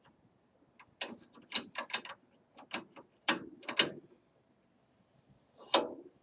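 Remington 700 rifle bolt worked by hand in the action, a quick run of sharp metal clicks and scrapes, then one more click near the end, as the bolt is closed and opened on a go gauge in the freshly cut chamber.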